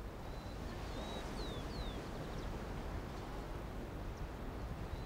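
Steady outdoor ambience with a low rumble, and three or four short, faint falling bird chirps in the first two seconds.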